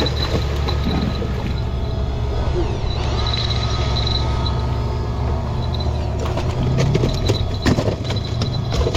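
Small boat's motor running steadily with a low rumble. A few sharp knocks come in near the end.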